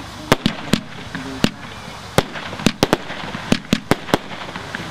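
Consumer firework cake (battery) firing, its small shells bursting in about a dozen sharp cracks at uneven intervals.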